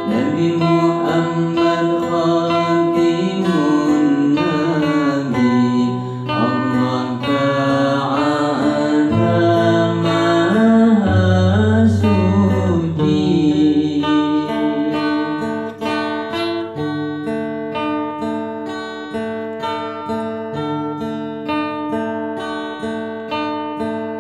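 A man sings an Islamic devotional syair in long, bending, ornamented notes over an acoustic guitar picked in a steady pattern. About two-thirds of the way through the voice stops and the guitar plays on alone with a repeating picked figure.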